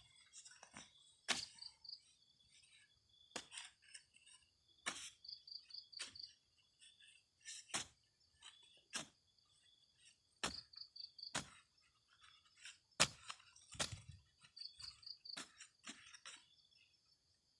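A long-handled digging spade with a narrow metal blade being jabbed down into dry, clumpy soil, an irregular series of sharp thuds and scrapes about every second or so, the hardest strike near the end.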